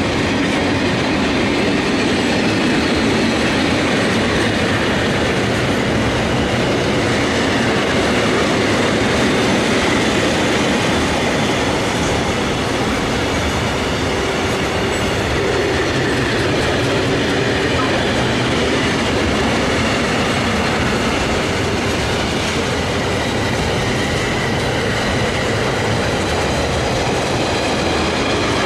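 Container freight wagons rolling past close by: a steady, loud rumble and rattle of steel wheels on the rails, with faint high ringing tones from the wheels.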